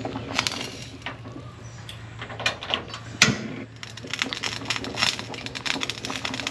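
Water boiling hard in a wok with slabs of pork belly in it, bubbling and popping in irregular crackles over a steady low hum: the pork belly being parboiled before deep-frying. A single sharp knock about three seconds in.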